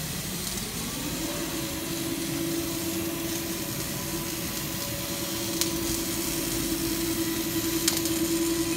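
An electric motor on an automatic seam welding machine hums at one steady pitch, rising to speed about a second in, over a steady workshop background with a couple of faint ticks.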